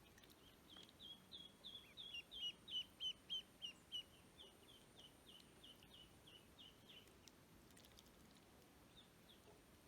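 Ducklings peeping: a run of short, high, falling peeps, about three a second, loudest a few seconds in and fading out after about seven seconds.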